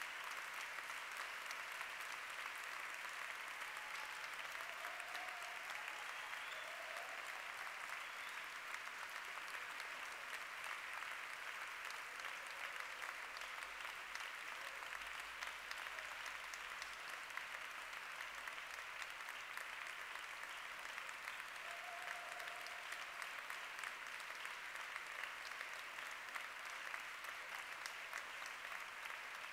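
Audience applauding in an even, unbroken wash of clapping, with a few faint voices rising over it.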